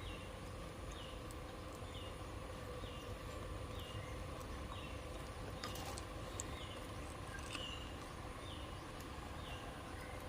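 A small bird chirping faintly over and over, about once a second, over a steady low hum. There are a couple of light clicks about two thirds of the way in.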